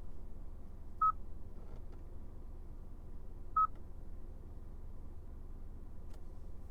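Two short electronic beeps of the same pitch, about two and a half seconds apart, from the 2020 Hyundai Sonata's chime, over a low steady hum.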